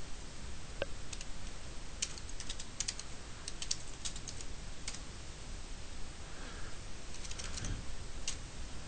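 Computer keyboard keystrokes. A run of quick typing starts about two seconds in and lasts until about five seconds, and a shorter run comes around seven to eight seconds, over a faint steady hiss.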